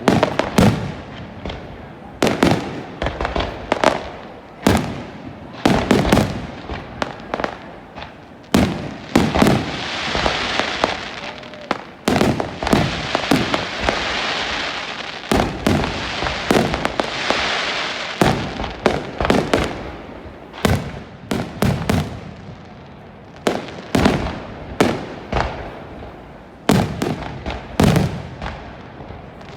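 Fireworks display: a rapid, irregular series of loud shell bursts, with a stretch of dense crackling hiss through the middle.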